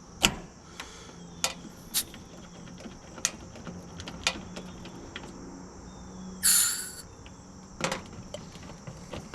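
Scattered sharp clicks and knocks of hand tools being handled and put away, with insects trilling steadily in the background. A short, loud hiss comes about six and a half seconds in.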